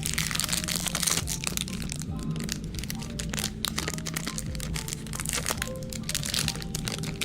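Rapid crackling and crunching, typical of chocolate-coated Magnum ice cream being crushed in a meat grinder, over background music.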